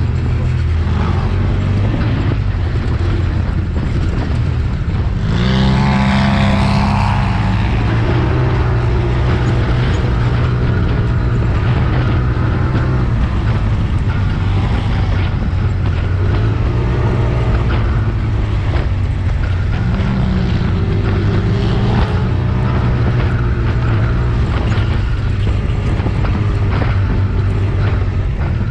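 Off-road vehicle engine running steadily under load while driving through soft dune sand, revving up hard about five seconds in and again more briefly near twenty seconds.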